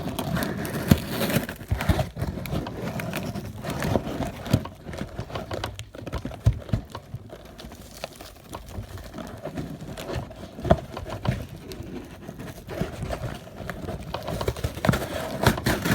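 Handling noises from a shipping package being forced open by hand: irregular knocks, taps and scraping as it is pulled and worked at.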